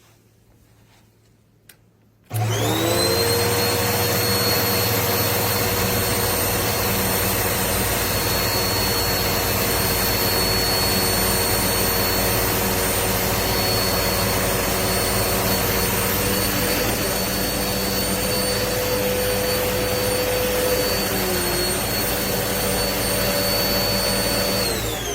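Hoover Pet Max Complete bagless upright vacuum cleaner switched on a little over two seconds in, after a small click. Its motor whine rises quickly to speed, runs steadily with a high whine over a rushing airflow, and begins to wind down at the very end.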